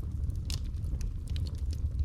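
Wood fire burning in a fireplace: a steady low rumble of the flames with irregular sharp crackles and pops from the logs, one louder pop about a quarter of the way in.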